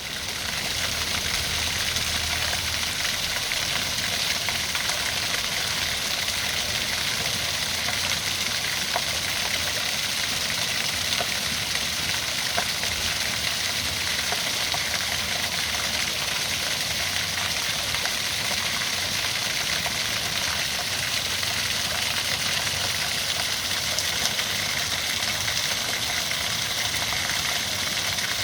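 Waterfall pouring, a steady rushing hiss that fades in over the first second and then holds even.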